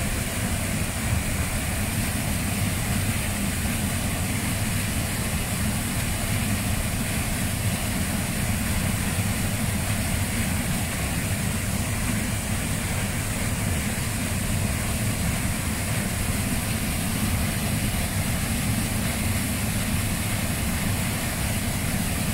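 Waterfall pouring over boulders into a plunge pool: a steady, unbroken rush of falling water, heavy in the low end.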